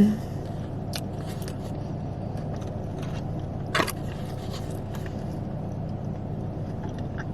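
Steady low hum of a car running with its climate fan on, with a few brief chewing sounds and small clicks, the clearest about a second in and about four seconds in.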